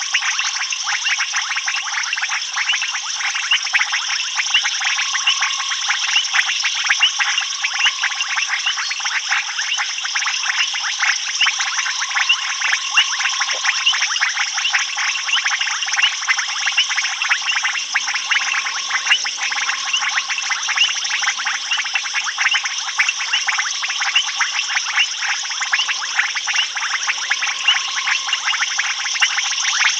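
Dense night chorus of frogs and insects at a waterhole: a steady mass of rapid clicking and chirping, with a lower repeated call that keeps coming back.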